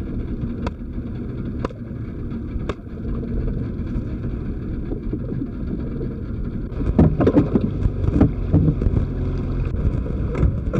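A boat's engine running steadily, with three sharp clicks about a second apart near the start and louder irregular knocks and clatter from about seven seconds in.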